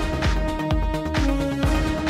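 Electronic background music with a steady beat about twice a second under held synth notes.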